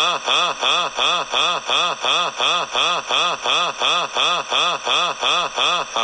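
A cartoon character's laugh: an unbroken string of 'ha's, about three a second, each rising and falling in pitch and evenly repeated like a looped laugh sound effect.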